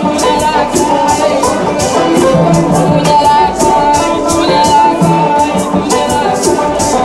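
Live acoustic band music: maracas shaken in a steady rhythm over a strummed banjo and drum, with a woman singing along.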